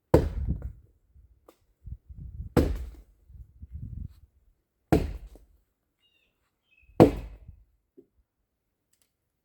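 Axe blows chopping into a rotten tree trunk: four heavy strikes, about two seconds apart.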